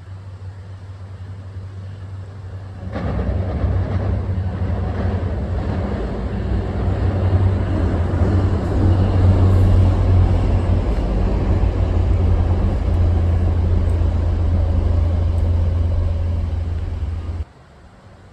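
Diesel-hauled passenger train passing: a low engine drone that builds, jumps sharply louder about three seconds in as the train comes by, and stays loud until it cuts off suddenly near the end.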